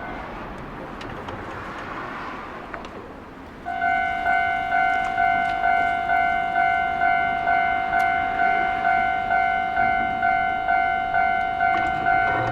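Japanese railway level-crossing warning bell starts ringing about three and a half seconds in: a loud electronic clanging tone, a little under two strokes a second, each stroke fading before the next. A steady rushing noise comes before it.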